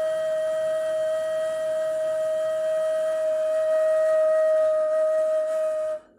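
Ney, the Turkish end-blown reed flute, holding one long, steady, breathy note that stops suddenly near the end.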